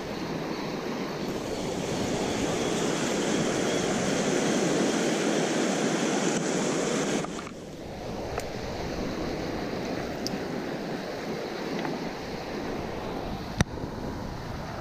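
Fast river rapids rushing over a rocky bed, loud at first and then dropping suddenly to a quieter steady rush about seven seconds in. A single sharp knock comes near the end.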